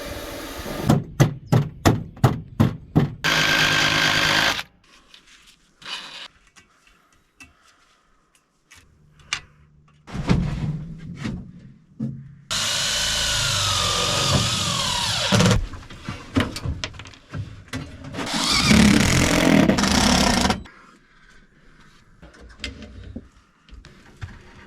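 Power tools and hand tools at work: a quick series of about eight knocks, then several separate runs of a power tool. In one run the tool's whine sags in pitch under load.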